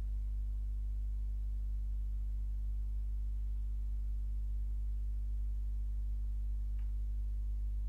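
Steady low hum, one deep tone with fainter overtones above it, unchanging throughout; a faint brief tick about seven seconds in.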